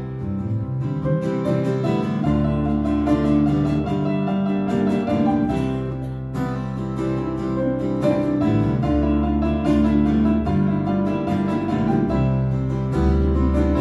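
Instrumental passage played live by two acoustic guitars and a keyboard, without singing; the keyboard holds long low notes under the strummed guitar chords.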